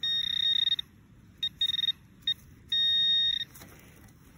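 Handheld metal-detecting pinpointer sounding a steady high beep in about five on-off spells as it is moved over the dug soil. The longest spells come at the start and about three seconds in, as it picks up a small iron nail buried in the dirt.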